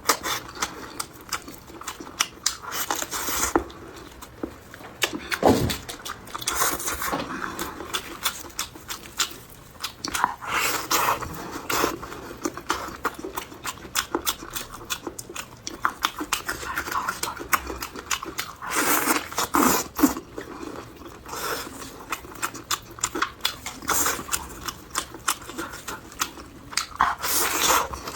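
Close-miked chewing and biting of food, with dense, irregular wet mouth clicks and smacks and louder clusters of bites every few seconds.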